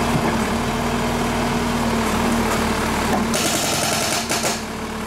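Backhoe loader's diesel engine running steadily. About three seconds in, a hydraulic breaker joins it, hammering into concrete paving tiles.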